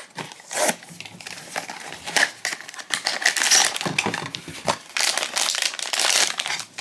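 Small cardboard blind box being opened, then its silver foil bag crinkling as it is pulled out and handled. Scattered rustles at first, with denser crinkling from about halfway.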